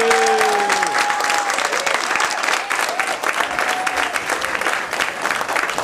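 Audience applause with cheering, taking over as the last held note of the song fades out about a second in. Scattered shouts from the crowd sound over the clapping.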